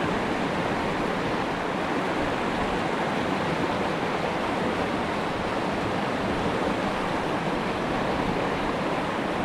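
River water rushing steadily, an even, unbroken flow noise.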